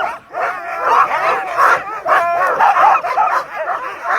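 A team of Alaskan husky sled dogs barking, yipping and whining all together, many overlapping calls, as they wait eagerly at the start line to be let go.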